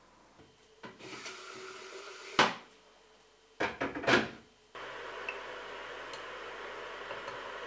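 Kitchen handling sounds: a sharp knock about two and a half seconds in, then a short clatter as an electric kettle is handled at the counter. From about five seconds on a steady hiss follows, the kettle heating water.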